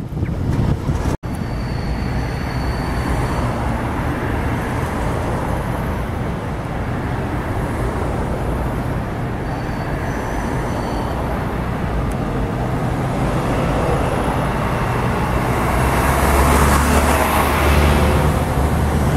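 City street traffic noise, growing louder near the end as a tram passes close by with a low rumble.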